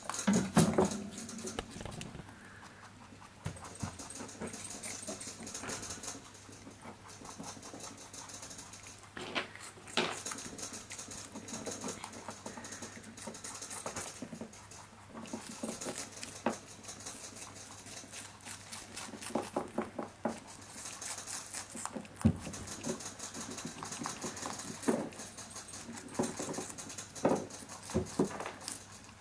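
Baby rabbits munching watermelon rind held out to them by hand: crisp crunching in quick runs of small clicks, starting and stopping again and again.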